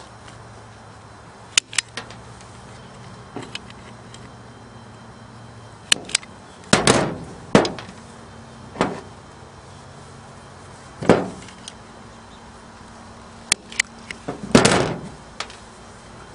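Wire strippers working on an extension cord's wires, stripping off the insulation: irregular sharp clicks and snaps of the tool's jaws, a few longer ones with a short rasp.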